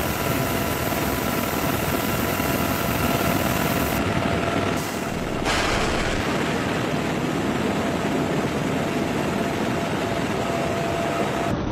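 UH-1Y Venom helicopter in flight, heard from inside the cabin: a loud, steady rush of rotor and airflow with several steady turbine whine tones on top. The sound changes briefly about four seconds in.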